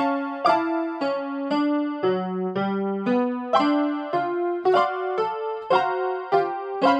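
Electronic keyboard music, a Casio in a piano-like voice: a simple melody of notes struck about twice a second over a lower accompanying note.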